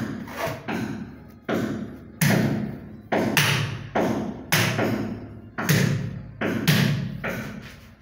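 Hands slapping a large porcelain wall tile over and over to bed it into the adhesive: a run of dull thuds, about two a second, each dying away quickly.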